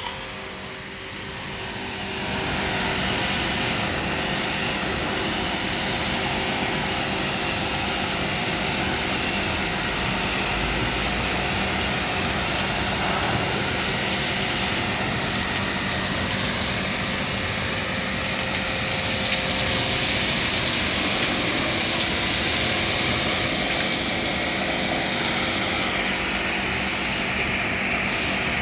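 Daikin inverter air conditioner outdoor unit running: a steady rush of fan air with a low steady hum under it. It grows louder over the first two seconds or so, then holds even.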